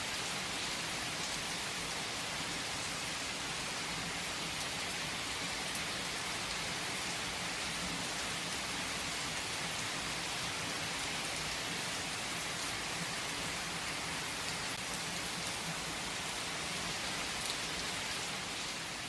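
Steady rain falling on a surface, an even hiss with occasional distinct drop ticks, beginning to fade out near the end.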